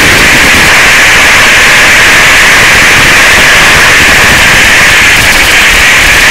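Loud, steady hiss of radio static from the analog FPV video receiver's audio channel, which carries no signal of its own.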